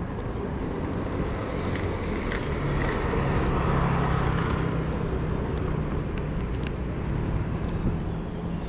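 Urban street traffic noise, with a motor vehicle passing on the road alongside: its engine hum and tyre noise swell to a peak about three to five seconds in, then ease off.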